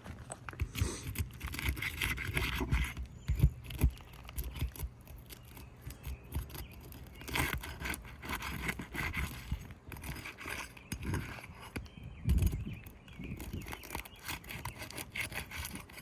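A roof snake scraping as it is worked under 3-tab asphalt shingles to break their adhesive seal strips, in irregular scraping strokes with a few dull knocks.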